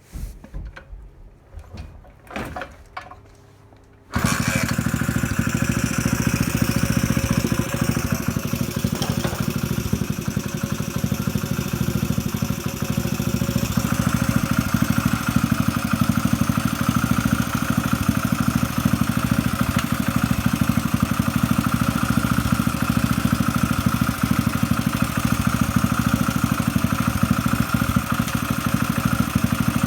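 Honda CD90 single-cylinder four-stroke engine: a few knocks, then it starts about four seconds in and runs steadily.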